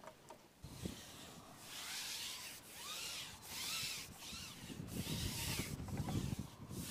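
Fishing pole being slid across the knees and through the hands, rubbing in a run of swishing strokes about a second apart, starting about a second and a half in, with faint squeaks.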